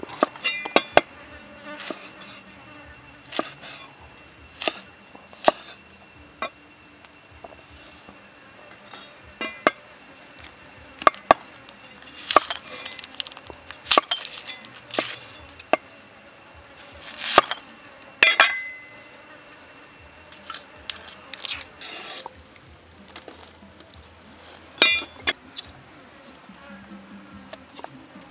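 Cleaver chopping vegetables on a thick wooden chopping block: irregular sharp knocks, some in quick runs of strokes, the loudest clusters about twelve and seventeen seconds in.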